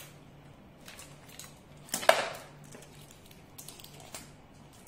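Plastic wrapping on an L.O.L. Surprise toy capsule being picked at and peeled by hand: scattered small clicks and crinkles, with one louder crackle about two seconds in.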